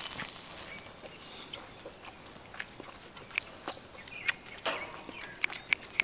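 Close-miked eating sounds: a person chewing grilled beef, with scattered sharp clicks and wet smacks. A soft rustle fades out in the first second.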